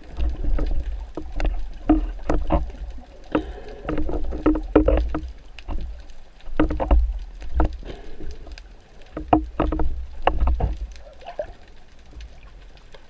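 Underwater handling noise: irregular clicks and knocks of a speargun's shaft and a speared fish being handled close to the camera, over a low rumble of water moving around the camera housing. It eases off in the last couple of seconds.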